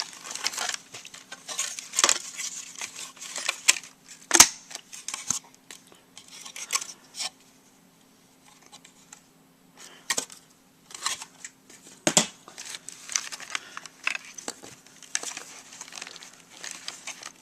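A plastic clock radio being handled and worked apart with a screwdriver: irregular clicks, scrapes and rattles of plastic parts and screws, with sharper knocks about four seconds in and again about twelve seconds in, and a short lull in the middle.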